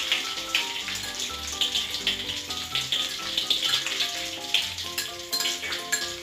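Halved hard-boiled eggs coated in beaten egg frying in shallow hot oil in a wok: steady sizzling with frequent small crackles. Background music with a simple melody of short notes plays over it.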